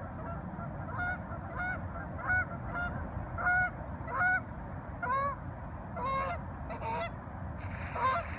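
A goose honking over and over: about a dozen short, pitched honks, roughly one every half second to second, over a steady low rumble.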